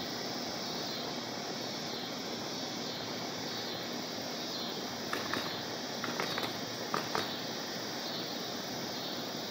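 Steady outdoor hiss of wind moving through the trees, with a few faint clicks about two-thirds of the way through.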